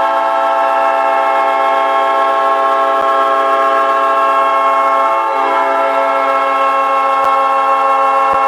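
Hockey goal horn sounding one long, steady blast, several tones together in a chord.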